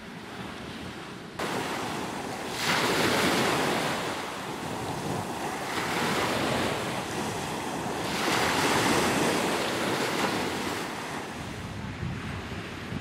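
Small sea waves breaking and washing up a sandy beach, swelling louder three times, with wind buffeting the microphone.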